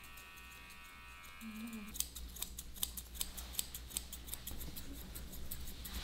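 Grooming scissors snipping through a dog's long fur, in quick irregular snips of about two to three a second that start about two seconds in. Before them a steady held tone sounds and then cuts off suddenly.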